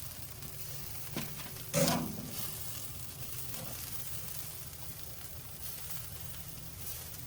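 Chicken thighs sizzling on a wood-fired grill, a steady hiss, with one sharp clunk just under two seconds in.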